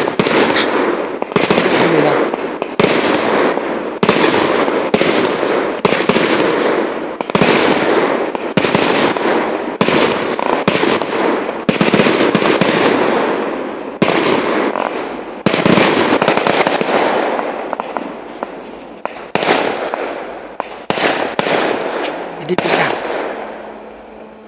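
Fireworks display: shells bursting in quick succession, several bangs a second, growing sparser and quieter over the last several seconds.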